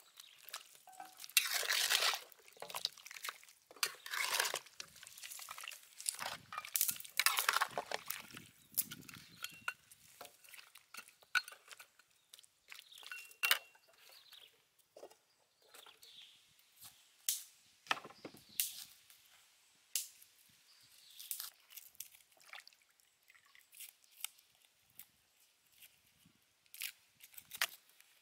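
A metal ladle stirring and scraping beef bones in a wok of simmering broth, with liquid sloshing and scattered clinks of metal. Near the end come a few sharp knocks of a knife chopping through corn cobs on a wooden board.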